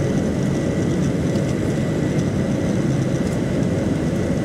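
Steady engine and airflow noise inside the cabin of a Boeing 737-800 with CFM56 turbofans running, a dense low rumble with a faint steady high whine.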